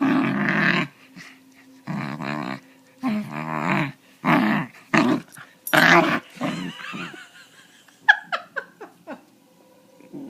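Three-month-old puppy making strange throaty growling grumbles while being petted, about seven drawn-out vocalisations one after another. They are followed about eight seconds in by a quick run of short, high, falling squeaks.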